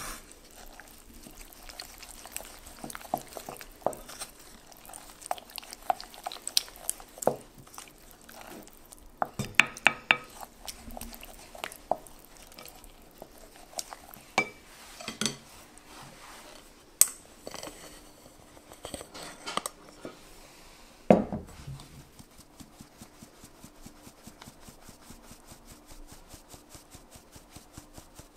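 Wooden spoon stirring flour and water into a dough in a glass bowl, with scattered knocks and scrapes against the glass. About 21 s in comes a louder knock, then a fast, even ticking as flour is shaken through a fine-mesh metal sieve over the bowl.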